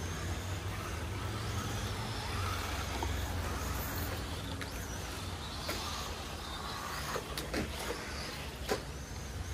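Electric radio-controlled rally cars driving on a dirt track, their motors whining over a steady low hum, with a few sharp clicks about four, six, seven and a half and nine seconds in.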